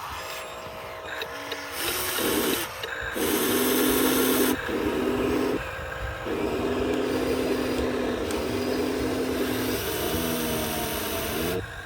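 Electric drive motors and gearboxes of RC model construction vehicles whining as they run in short bursts, starting and stopping several times. Near the end the pitch slides up and down as the motors change speed.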